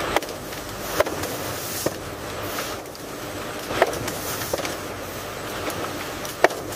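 Processing-line machinery running: a steady hiss with irregular sharp clacks, about six of them over the few seconds.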